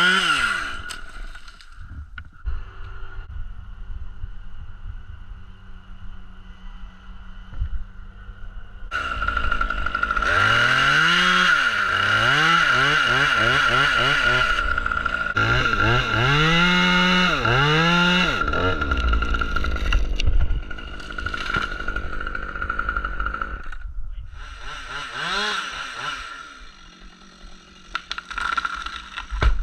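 Husqvarna two-stroke chainsaw idling, then revved up and down again and again in short sweeps, with a long loud stretch at high speed through the middle.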